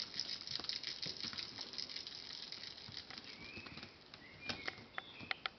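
Bengal kittens playing: a busy patter of small paws, claws and light knocks that thins out after about three seconds. A few brief high squeaks and sharp clicks come near the end.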